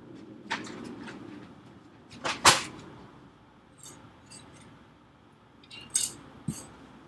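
Clicks and clatters of small tools and computer parts being handled on a workbench: several separate sharp knocks, the loudest about two and a half seconds in, with lighter ticks around four seconds and a pair near six seconds.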